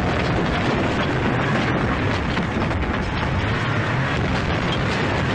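Steady, dense rumble of a large convoy of cars driving across dirt ground.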